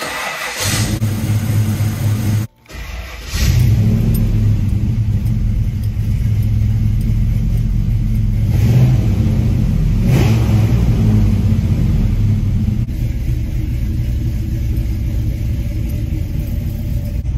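LS-swapped V8 engine in a GMC Caballero starting up and running loud. The sound drops away for about a second early on, then the engine runs on steadily with a few short revs.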